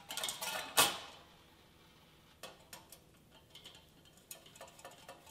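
Metal clatter as a wire bakeware rack and its brackets are handled, with one sharp clank about a second in, then scattered light metallic clicks and ticks.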